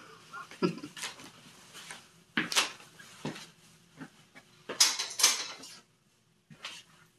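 Rustling and knocks of merchandise and packaging being handled, in a series of short bursts. The loudest and longest rustle comes about five seconds in.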